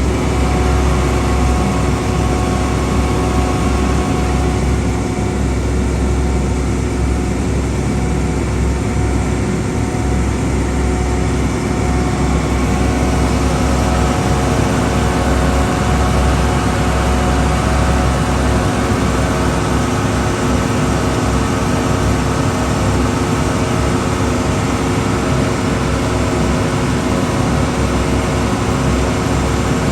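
Tour boat's engine running steadily under way, a loud low hum with a few steady tones over it, heard from aboard.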